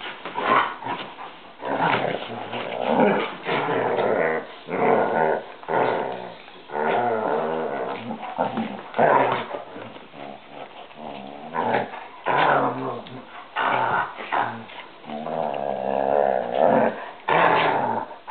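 A German Shepherd and a small dog wrestling and growling in play. The growls come in a near-continuous run of short rising and falling grumbles.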